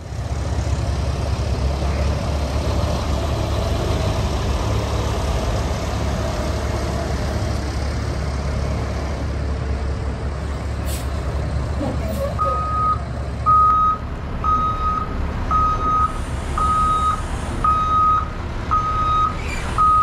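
A Cat diesel engine in a 2014 Cat CT660 fuel/lube truck runs with a steady low rumble. A couple of sharp clicks come near the middle. Then the reverse backup alarm starts, a single high steady beep about once a second.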